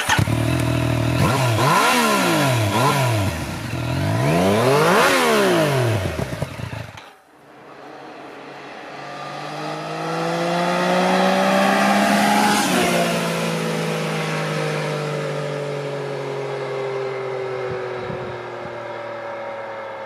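Yamaha Niken's 847 cc three-cylinder engine through its stock exhaust, revved up and down several times while standing still. Then the bike rides past: the engine grows louder as it approaches, drops in pitch as it passes about 12 seconds in, and fades away.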